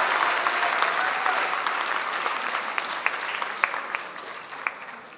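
Audience applause fading steadily, with a few separate claps standing out near the end.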